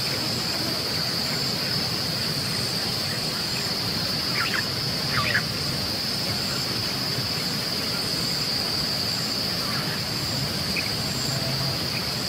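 Steady high-pitched insect chorus, crickets or similar, droning evenly in grassland, with a few short rising chirps about four and five seconds in.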